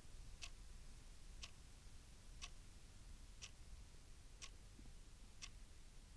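A clock ticking faintly and evenly, one tick a second.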